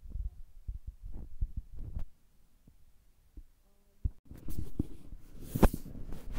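Irregular low thumps and taps, in the manner of fingers tapping and handling a tablet. A busier stretch of tapping and rustle begins about two thirds of the way in, with one sharp click near the end.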